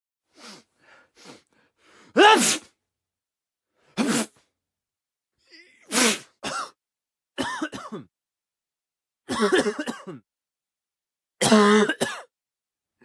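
A string of short coughs and throat clearings: a few faint ones first, then louder single and double coughs every second or two.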